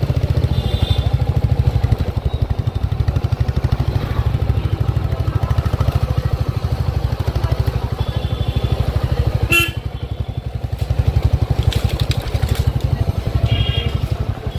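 Riding on a motorbike in street traffic: a steady low engine rumble mixed with wind buffeting on the microphone. A few short high-pitched beeps come and go, and there is a sharp click about ten seconds in.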